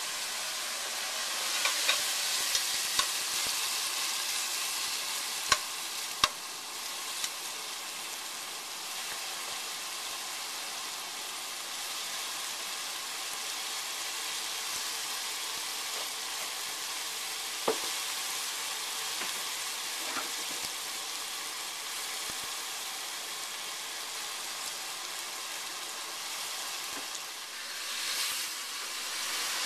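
Cubes of marinated lamb searing in oil in a stainless steel pot: a steady sizzle. A few sharp clicks come from the stirring utensil against the pot.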